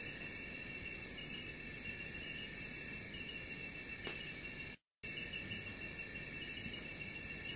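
Insects trilling steadily at several high pitches, with a higher chirp coming in about every second and a half. The sound cuts out completely for a split second just past halfway.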